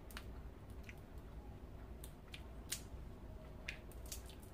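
Boiled peanut shells being cracked and pulled open by hand: a scattered series of faint, short, sharp clicks and snaps, about eight in all.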